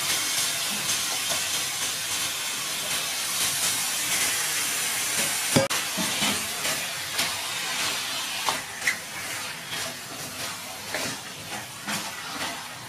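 Raw chicken pieces sizzling with a steady hiss as they land in a hot pan of fried masala. A sharp knock comes about halfway through, then a wooden spatula stirs and scrapes the pan in short strokes while the sizzle fades.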